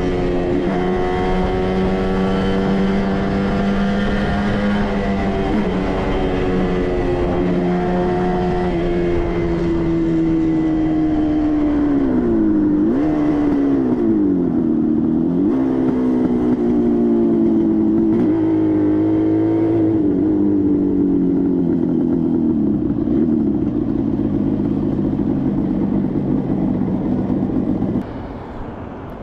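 1967 Kawasaki A1SS Samurai's 250 cc two-stroke twin running while the bike is ridden. The engine note holds steady, then falls and climbs again several times in the middle as the throttle is eased and reopened, settles lower, and cuts off suddenly near the end.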